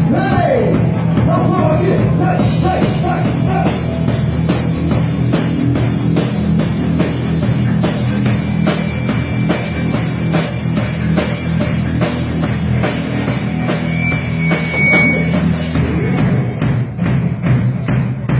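A band playing rock-style worship music: a drum kit keeping a steady beat under sustained chords, with no singing yet.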